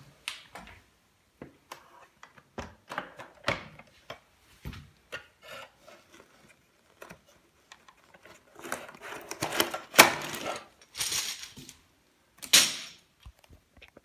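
Clicks, rubbing and scraping of an Electrolux UltraOne bag vacuum cleaner being opened and its full dust bag, with a cardboard collar, pulled out. Louder rustling and scraping come from about nine to eleven seconds in, and once more near the end.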